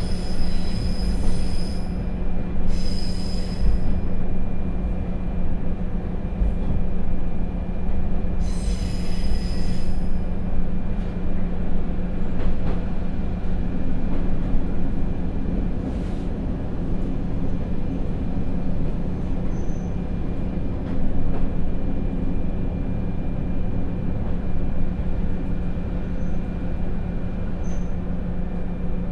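Akechi 100 diesel railcar with its Niigata DMF13HZ engine, heard from inside, running and slowing down with a steady low engine hum and wheel rumble. Three bursts of high-pitched wheel squeal come in the first ten seconds.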